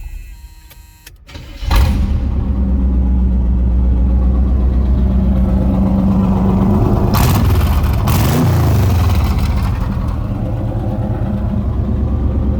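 1976 Chevrolet Corvette's 350 small-block V8 starting abruptly after a short quieter spell, then running at a steady idle. About halfway through it gets a single quick rev, rising and falling in pitch, before settling back to idle.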